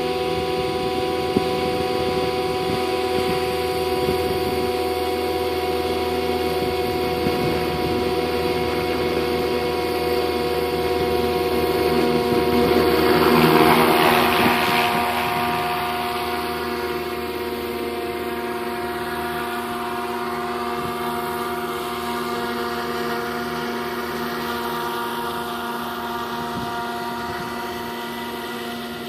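Scale RC helicopter with an AS350 Ecureuil fuselage running at steady speed, a continuous whine of motor, gears and rotors. It swells louder about halfway through, as if passing close, then eases off.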